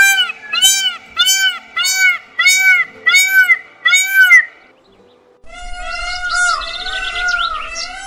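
Indian peafowl calling: a fast run of seven loud, arched, honking calls over about four and a half seconds. After a brief pause comes a busier stretch of overlapping calls and quick rising squeals over a low rumble.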